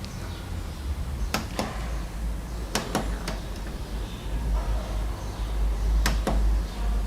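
A handful of sharp clicks, several in quick pairs, over a steady low rumble of handling noise.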